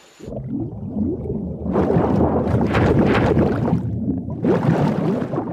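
Cartoon underwater sound effect: dense bubbling and gurgling over a low rumble. It starts just after the cut and gets louder about two seconds in.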